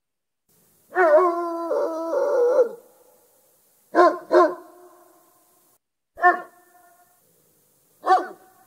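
Great Dane barking: one long, wavering, drawn-out bark or howl, then a quick pair of barks, then two single barks a couple of seconds apart.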